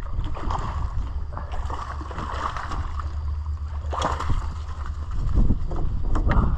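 A hooked fish splashing and thrashing at the water surface below a pier, with a sharper splash about four seconds in. A steady low rumble of wind on the microphone runs underneath.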